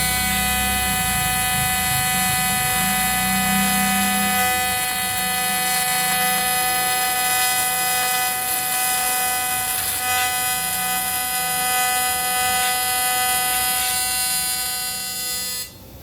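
Steady electrical buzz at one unchanging pitch, cutting off suddenly near the end.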